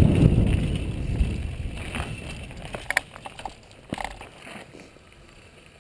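Mountain bike riding down a dirt trail, heard from a helmet camera: a loud rush of wind and tyre rumble that fades over the first couple of seconds, then quieter rolling with a few sharp clicks and rattles from the bike.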